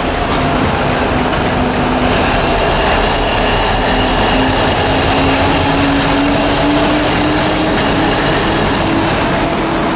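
Class 60 diesel-electric locomotives running past at low speed, the leading engine's eight-cylinder Mirrlees diesel working under power. Its steady engine note slowly rises in pitch.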